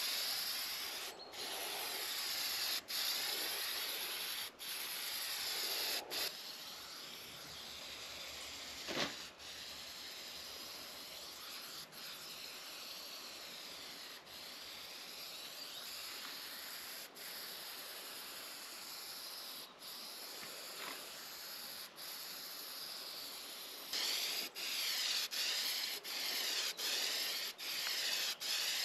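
Aerosol can of Rust-Oleum high-heat spray paint hissing in long passes, broken by many short pauses where the nozzle is let go. It is softer through the middle stretch and louder again near the end.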